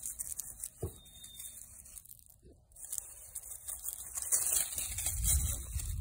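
Rustling and light crunching of feet moving through grass and dry fallen leaves, with a low rumble on the microphone that grows louder in the second half.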